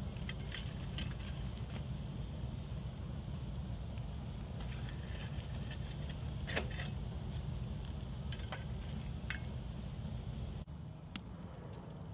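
Campfire crackling, with scattered sharp pops and clicks from burning wood and coals over a steady low rumble.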